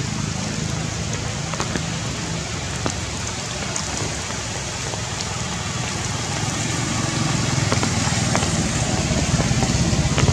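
Steady rain falling on foliage, with scattered drops tapping, over a low steady hum that grows louder near the end.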